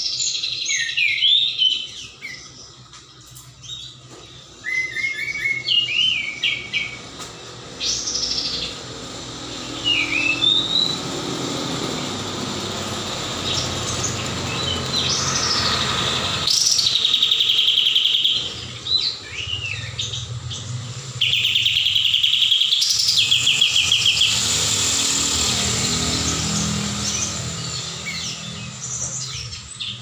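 Caged kapas tembak songbird singing in bursts of varied chirps and short whistled phrases, with fast trilled runs about halfway through and again later, over a low background rumble.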